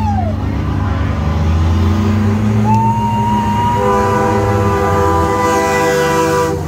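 A semi truck's air horn blowing: one blast falls in pitch and dies away just as it begins, then a long steady blast starts about two and a half seconds in and cuts off suddenly near the end, over the truck's diesel engine running.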